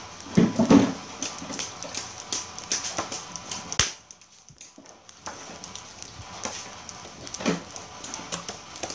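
Sizzling and irregular crackling from shellfish and beef grilling on a wire rack over a clay charcoal stove, dropping almost to silence for about a second midway.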